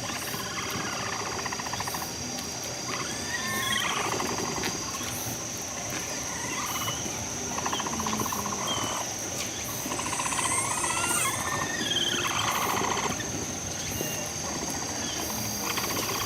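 Capybaras singing: buzzy, rapidly pulsed purring calls of a second or two each, repeated several times, some with a gliding squeak, over a steady high-pitched insect drone.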